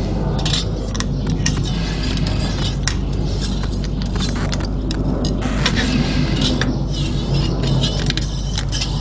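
Steel feeler gauge and straight edge clinking and scraping in scattered small metallic clicks on the cylinder head, over a loud steady mechanical hum with a low drone.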